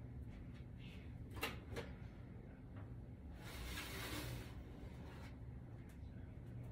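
Faint sounds of an oven being opened to take a jar out: a single click about a second and a half in, then about a second of swishing in the middle.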